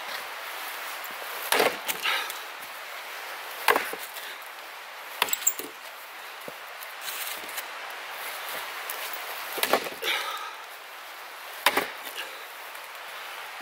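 Wood being chopped: about five sharp chopping strikes, roughly two seconds apart, some followed closely by a lighter knock.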